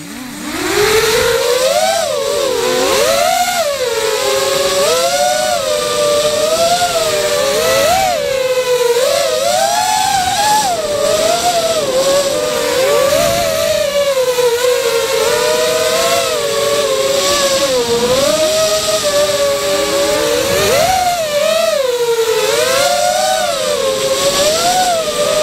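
Brushless motors and propellers of a 180 mm FPV racing quadcopter with Racerstar 2403 motors, spinning up from rest at the start and then buzzing in flight. The whine rises and falls continuously as the throttle changes.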